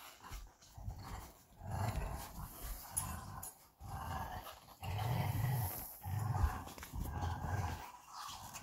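Belgian Malinois play-growling during a tug-of-war game, with low, rough growls coming in repeated short bursts.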